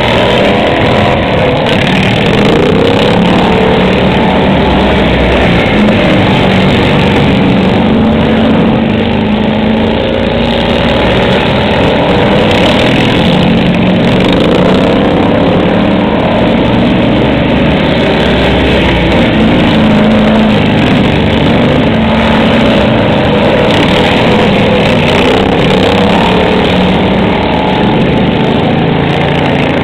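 Several racing riding lawn mowers' small engines running hard around a dirt track. The overlapping engine notes rise and fall as the mowers accelerate, corner and pass.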